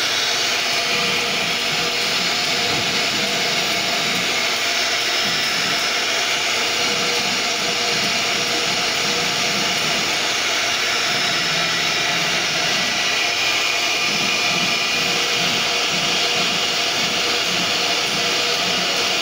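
CNC router spindle running at speed while its bit cuts shapes out of a wooden sheet: a steady high whine mixed with the hiss of the cut.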